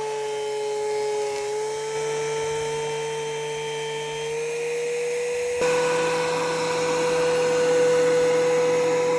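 Old Craftsman 12-inch bandsaw running with a steady whine. The whine shifts abruptly and gets a little louder about halfway through.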